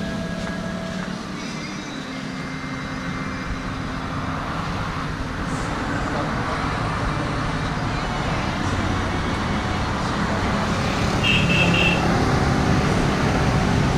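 Road traffic going by, a steady rumble of passing motor vehicles that grows louder toward the end. A short, rapidly pulsing high beep sounds about eleven seconds in.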